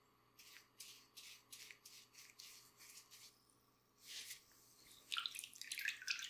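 Faint wet rubbing strokes, about two a second, from a coating being worked over a sock-covered foot. Near the end they give way to a denser run of squishing and crackling.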